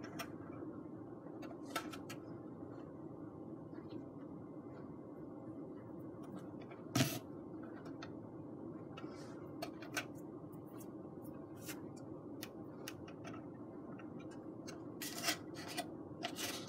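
Faint steady room hum with scattered small clicks and creaks from foamboard being held together while hot glue sets. There is one sharper knock about seven seconds in.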